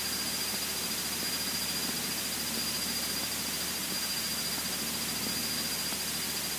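Steady in-flight drone of a Cessna 152's four-cylinder engine and cabin noise, heard as an even hiss with a constant high-pitched whine over it.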